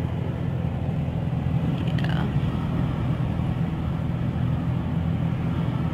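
Steady engine and road hum heard inside a car's cabin, rolling slowly in heavy traffic.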